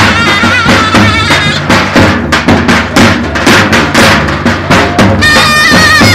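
Davul and zurna playing a loud folk dance tune: a reed melody with wavering ornaments over steady drum strokes. The melody thins out for a few seconds mid-way, leaving mostly the drum, then comes back on a higher note near the end.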